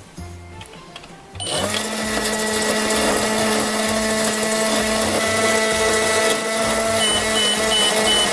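Toy microwave switching on about a second and a half in and running with a steady electronic hum. Short repeated beeps start near the end, signalling that the cycle is done.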